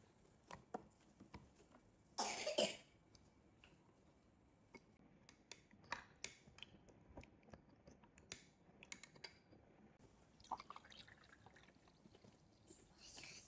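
A small spoon crushing a pickled plum (umeboshi) in a glass tumbler, with scattered clicks and taps of the spoon on the glass and soft squishing. Near the end carbonated water is poured into the glass.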